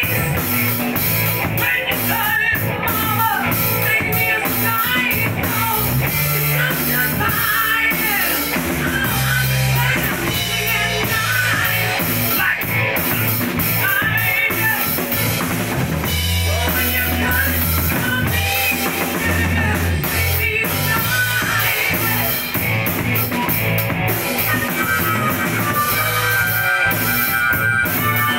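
Live rock band playing: drum kit, electric guitar and bass guitar, with a man singing into a microphone. Near the end the singer switches to a harmonica played into the microphone.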